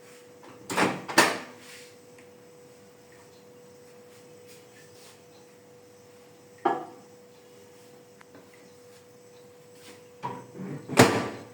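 Scattered knocks and clunks as a glass bowl is set into a microwave oven and the oven's door is handled: a pair of bumps about a second in, a single one midway, and the loudest cluster near the end, over a faint steady hum.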